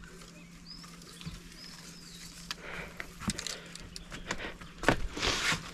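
Rustling of reeds and grass with scattered light knocks as a hand works through bankside vegetation beside a wooden canoe. The rustling gets louder near the end, and a couple of faint bird chirps come early on.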